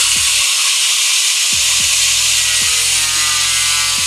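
Angle grinder with a cutting disc slicing through a 3 mm Kydex plastic sheet: a loud, steady, high hissing grind over the motor's whine, which shifts slightly in pitch near the end as the load changes.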